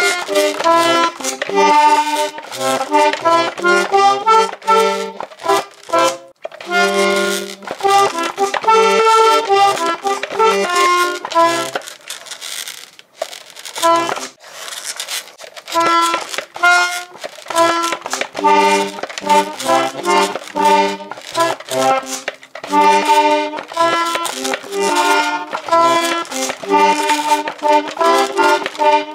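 Flying Tiger Copenhagen toy mini button accordion played at speed: a quick tune of short reedy notes over low notes, with a brief break about halfway.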